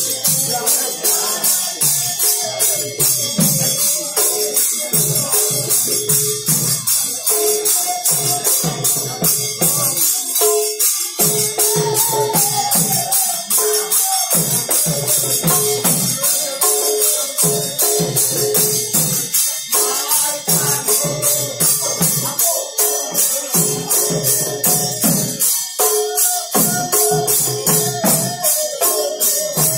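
Manipuri Nata Sankirtan music: hand cymbals clashed in a fast, steady beat, with chanted singing and drum strokes underneath.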